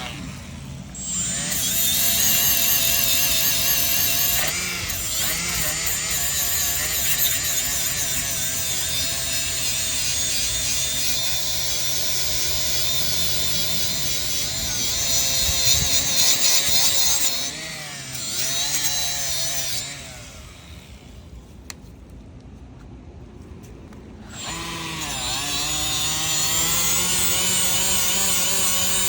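Power tool spinning a gasket remover disc, grinding old oil pan gasket off an engine block's sealing surface; its pitch wavers as it is pressed against the metal. It eases off for a few seconds about twenty seconds in, then runs again.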